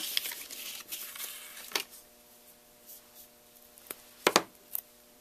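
Paper and a roll of adhesive tape handled on a craft mat: rustling for the first second and a half, then a few sharp taps and clicks, the loudest a quick double click about four seconds in.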